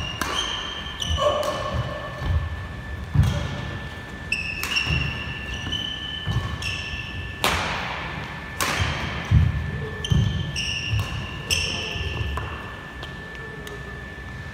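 Badminton rally: sharp racket-on-shuttlecock hits and thudding footsteps, with sports shoes squeaking in short bursts on the court floor. It dies away near the end.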